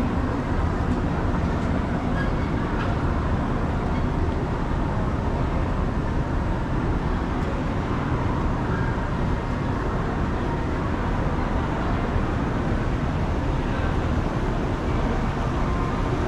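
Steady low rumble and hum of running escalators, with no distinct knocks or voices standing out.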